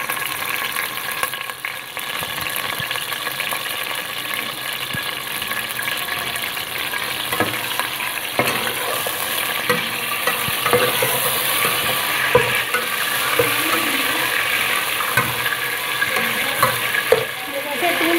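Chunks of meat sizzling steadily in hot oil in a metal pot, being stirred with a steel ladle; from about seven seconds in the ladle scrapes and knocks against the pot now and then.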